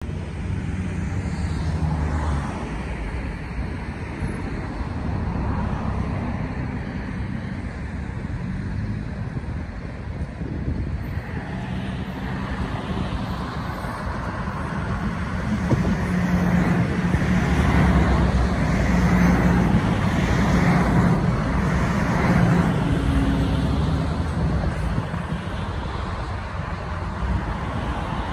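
Steady road traffic noise, with a TTC subway train approaching on the open track and passing close by; the rumble grows louder for several seconds in the middle, then eases off.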